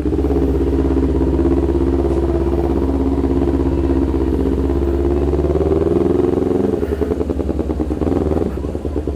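2019 Kawasaki Ninja 250's parallel-twin engine through a loud can-style aftermarket exhaust, really noisy, running at steady revs under way. About seven seconds in the note turns choppier and uneven.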